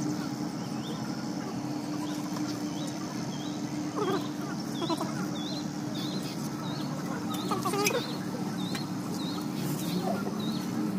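A small bird chirping over and over, a short rising chirp that repeats faster after a few seconds, over a steady low hum. A few louder, lower sounds come near the middle.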